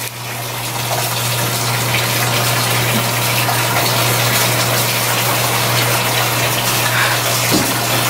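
Steady rush of running water that swells over the first second and then holds even, with a low steady hum beneath it.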